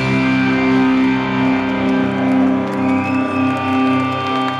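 Live punk rock: the band's distorted electric guitars and bass hold one sustained, ringing chord with almost no drumming, as at the close of a song.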